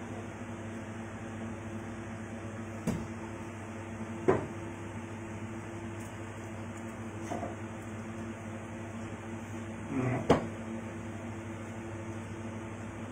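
Steady mechanical hum with a low buzz, like an appliance motor running, with a few short sharp sounds about 3, 4, 7 and 10 seconds in, the last two close together.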